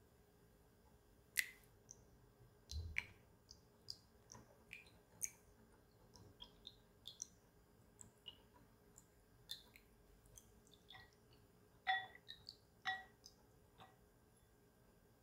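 Whisk clicking and tapping against a glass mixing bowl while beating egg yolks and milk: irregular light clicks, with a few louder knocks.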